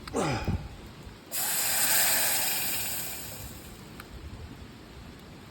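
A short falling groan-like sound at the start, then a sudden burst of hiss, like steam or sizzling, that swells and fades over about two and a half seconds.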